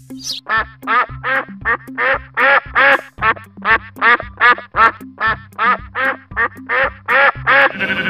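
A duck quacking over and over in a quick, even series of about two or three quacks a second, over background music with a steady low bass line.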